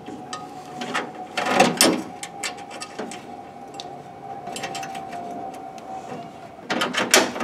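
Small metal clicks and taps of cap screws and washers being fitted by hand into a sheet-metal mounting bracket, scattered, with a busier cluster about a second and a half in and another near the end. A faint steady tone sounds underneath and stops shortly before the end.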